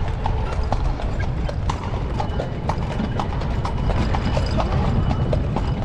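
Horse's hooves clip-clopping on stone paving at a steady walk as it pulls a tourist carriage, with a steady low rumble underneath.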